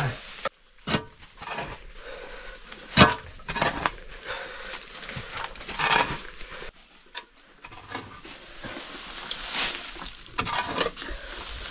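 A few sharp knocks and clatter at irregular moments, over an uneven background of movement noise.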